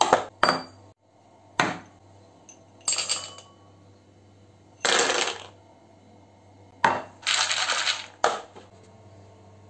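Dry dog kibble rattling as it is poured, in several short pours under a second each, into a stainless steel bowl and a plastic slow-feeder bowl. Sharp knocks come as the bowls are set down on the countertop.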